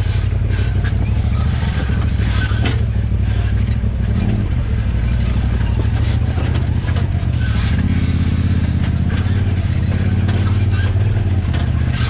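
Side-by-side UTV engine running at low speed while the machine works down a rocky, washed-out creek bed, with frequent knocks and rattles from the rough ground. The engine note picks up about eight seconds in.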